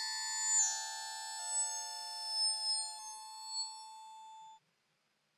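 A glistening, eerie synthesizer pad made in the browser with the Web Audio API: many high held tones that swell and shift from chord to chord, then cut off suddenly about four and a half seconds in.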